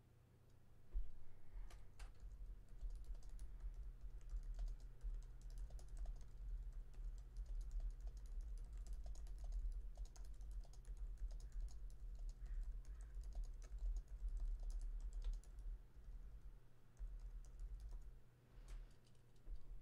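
Typing on a computer keyboard: a fast, uneven run of key clicks over a low rumble, thinning out near the end with a few last keystrokes.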